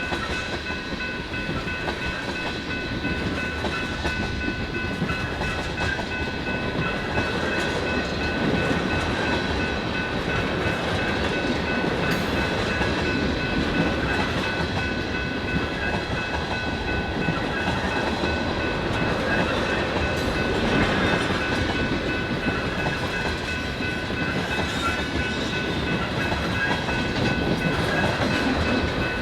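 BNSF freight train's cars rolling past, with a steady rumble and clickety-clack of wheels over the rails. A few steady high-pitched tones ring over the rumble.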